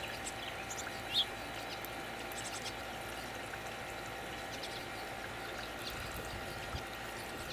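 Steady outdoor background hiss with a few faint, short bird chirps, the clearest about a second in.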